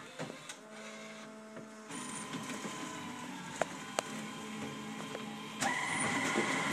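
Duplo digital duplicator running its plate-making (master-making) cycle, which ends with a sample copy fed out. It runs with a steady mechanical hum and a couple of sharp clicks, then steps up louder with a steady whine about five and a half seconds in.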